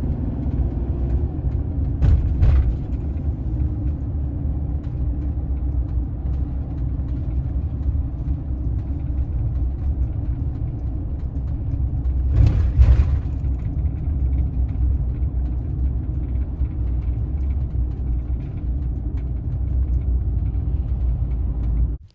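Steady low rumble of a camper van driving, tyre and engine noise heard from inside the cab. Two brief louder rushes break in, one about two seconds in and a stronger one about twelve seconds in.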